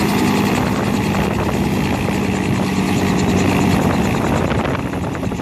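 Robinson R44 helicopter running on the ground just after touchdown: the steady beat of its two-blade main rotor over the tone of its Lycoming six-cylinder piston engine.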